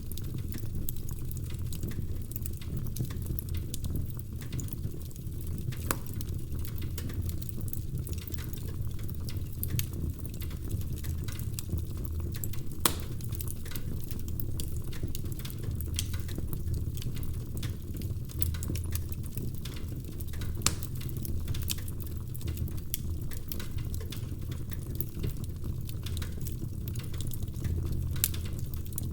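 Wood fire burning in a fireplace: a steady low rumble of flame with irregular crackles and pops from the logs, a few sharper pops standing out.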